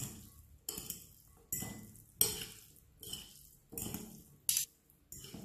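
Metal fork and spoon tossing a shredded lettuce salad in a glass bowl: repeated clinks and scrapes of the utensils against the glass, roughly one stroke every three-quarters of a second.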